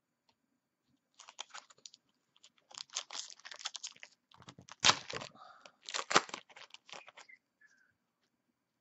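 Foil trading-card pack wrapper being torn open and crinkled: bursts of sharp crackling, the two loudest about five and six seconds in.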